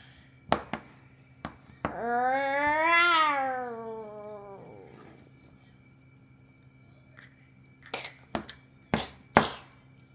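Plastic toy dinosaur figures knocked and set down on a hard tabletop: a few sharp clicks, then a long drawn-out call that rises and then falls in pitch for about two and a half seconds, then a quick cluster of knocks near the end, the last the loudest.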